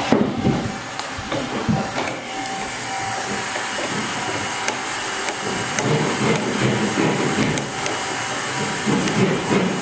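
Failing refrigeration agitator motor running with an irregular rattling and clicking over a steady machine noise, the sound the owner takes for a broken-up output bearing cage.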